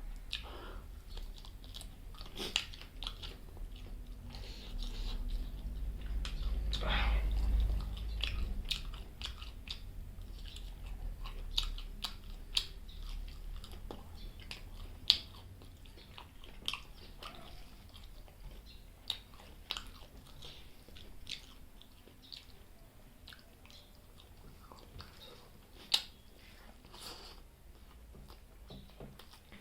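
Close-miked chewing of chicken liver and gizzard curry with rice: wet mouth clicks and smacks throughout, with a couple of sharper clicks about halfway through and near the end. A low rumble swells for a few seconds about a quarter of the way in.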